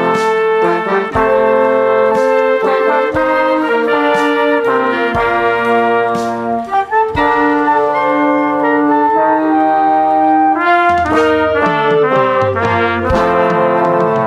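Mixed instrumental ensemble playing an arranged tune, brass carrying sustained chords and melody over drum hits.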